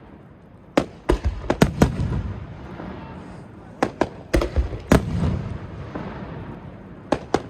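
Starmine fireworks barrage: clusters of sharp shell bursts in quick succession, about a second in, again around four to five seconds, and near the end, with a low rolling rumble between the bangs.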